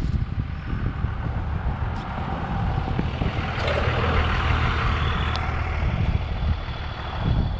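An engine running steadily, with a hissing noise that builds up in the middle and then fades.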